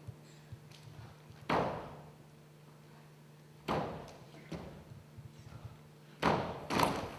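Four heavy thumps with a ringing tail, a couple of seconds apart and the last two close together, over a faint steady low hum.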